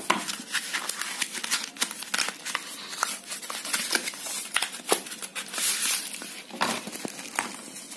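Cardboard phone box and its inner tray being handled and pulled apart: rustling and scraping of card with many small clicks and taps.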